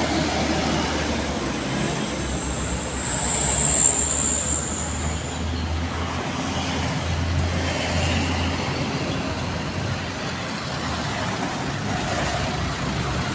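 Highway traffic passing close by: a Mitsubishi Canter light truck's diesel engine rumbling as it goes by, then cars and other vehicles with steady engine rumble and tyre noise. A high-pitched whine sounds for a couple of seconds a few seconds in.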